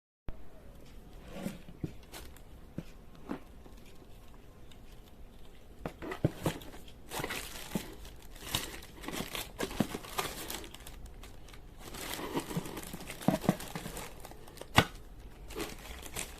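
Crinkling and rustling from something being handled, with irregular sharp clicks and knocks, busier and louder in the second half.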